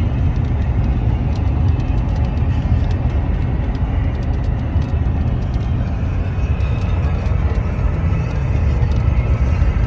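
Steady low rumble of a car on the move in a rainstorm, heard from inside the cabin, with a hiss of rain and wet road over it.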